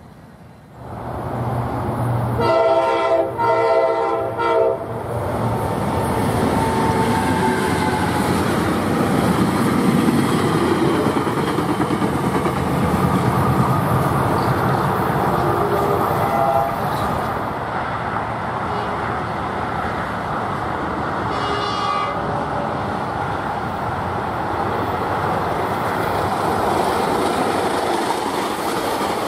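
A train horn sounds a multi-note chord for about two seconds, a few seconds in, and brief horn notes come again later. Around it a Tri-Rail commuter train of bilevel coaches runs past, with a steady rumble and wheels clicking over the rail joints.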